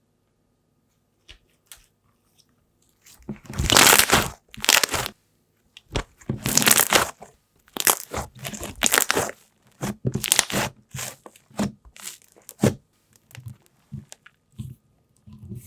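Crunchy slime squeezed and pressed by hand, making a series of crackling crunches separated by short pauses. It starts about three seconds in and grows shorter and fainter near the end.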